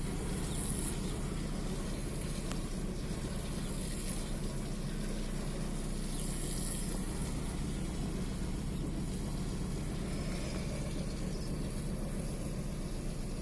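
Volkswagen Golf 4's 1.9 TDI AXR four-cylinder diesel engine idling steadily while it shakes continuously, the rough running of a cylinder 4 misfire.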